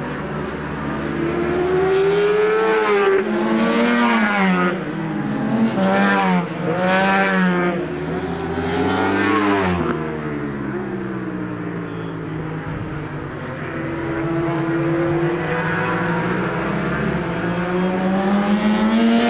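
Racing motorcycles running hard through a corner, their engine pitch repeatedly rising and dropping as several bikes go by in the first half. After a steadier, quieter stretch, another bike comes on, its pitch climbing near the end.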